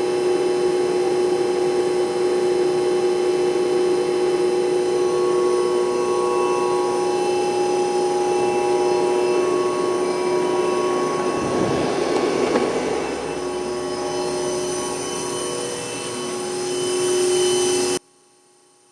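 Hurco VM1 vertical machining center running, a steady hum with several held whining tones. About twelve seconds in a brief noisy rush passes over it, and near the end the sound cuts off abruptly.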